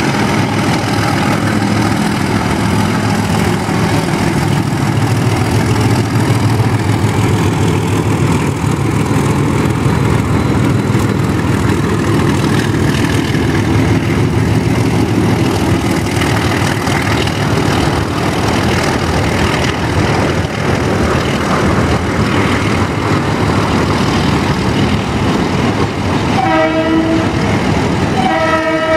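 Narrow-gauge diesel locomotive engine working hard as it pulls a short passenger train up a steep grade, a loud, steady rumble. Near the end the train horn sounds twice.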